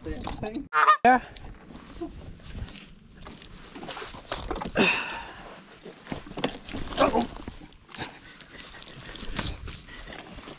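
Shoes knocking and scraping on a dead tree stump, with dry twigs and branches cracking and rustling as someone climbs from a boat onto it and handles the branches. A man's voice is heard briefly a few times, loudest about a second in.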